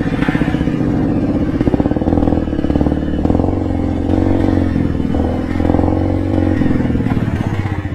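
Single-cylinder motorcycle engine running under way, its pitch rising and falling gently with the throttle.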